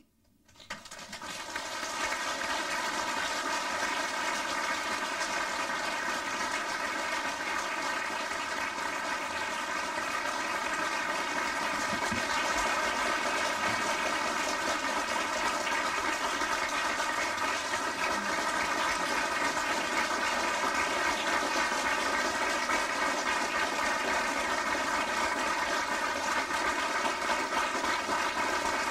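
Audience applauding, the clapping swelling up over the first two seconds and then holding steady for a long ovation.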